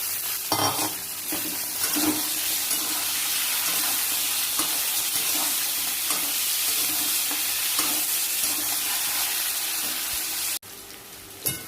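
Diced vegetables (papaya, potato, green banana and freshly added eggplant) sizzling as they fry in oil in a pan, with the spatula knocking and scraping as they are stirred. The sizzle drops off suddenly near the end, leaving a quieter hiss.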